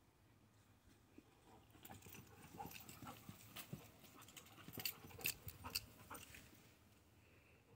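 Faint, irregular footsteps and rustling in grass, starting about two seconds in and loudest a little past the middle, with a few sharper clicks spaced about half a second apart, then fading back to near silence.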